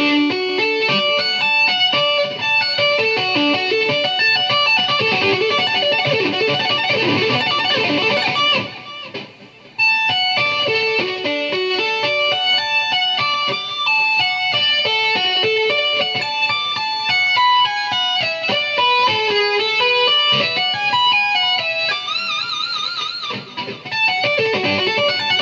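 Ibanez electric guitar playing fast string-skipping tapped arpeggios: smooth legato notes running up and down in quick succession. There is a short break about nine seconds in, and a held note with wide vibrato near the end.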